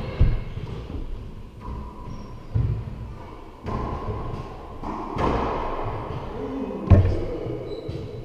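Racquetball rally: a string of sharp hits as the ball is struck by racquets and slams off the court walls, echoing in the enclosed court, the loudest hit coming near the end. Between the hits, sneakers squeak on the hardwood floor.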